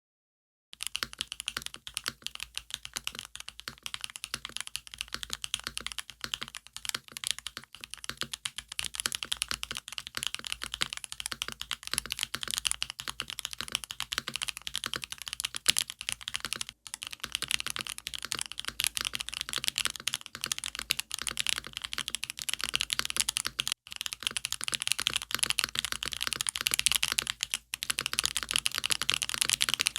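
Typing on a Tofu60 Redux SE mechanical keyboard with Duhuk Lumia Bitter Tea V2 tactile switches: a continuous run of keystroke clacks that picks up speed, with a few very brief pauses.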